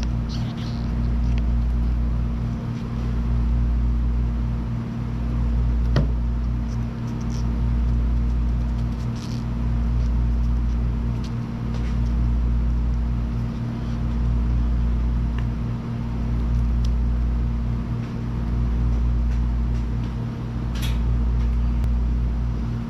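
A steady low machine hum that swells and dips about every two seconds, with a few light clicks and one sharp knock about six seconds in.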